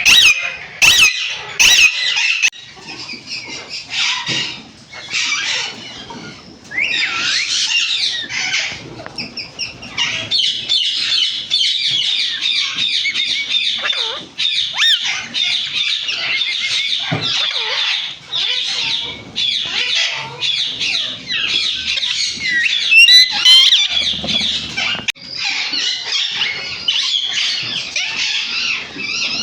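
A mixed flock of parrots screeching and chattering. A few loud, sharp shrieks come in the first two seconds, followed by a dense, almost continuous harsh chatter through most of the rest.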